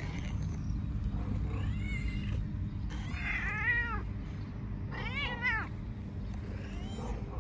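Hungry stray cat meowing repeatedly for food. A faint meow comes about two seconds in, two loud meows that rise and fall in pitch come around the middle, and a fainter one comes near the end, over a steady low rumble of background noise.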